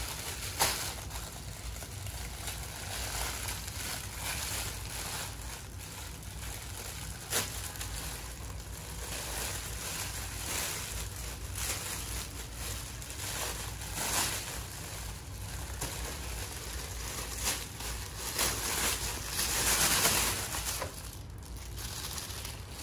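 Clear plastic bag crinkling and rustling as it is handled and pulled off a horse-head mask, with a louder spell of crinkling a few seconds before the end.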